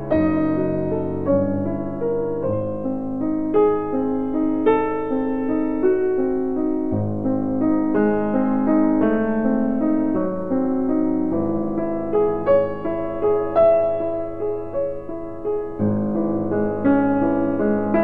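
Background music: solo piano playing a classical piece, with notes and chords changing about once or twice a second.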